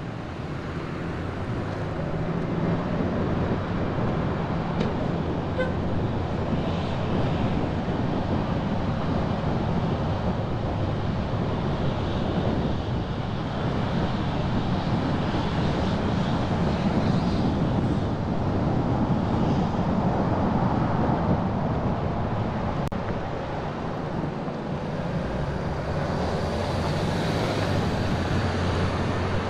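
Car driving through city streets: steady engine and road noise with surrounding traffic.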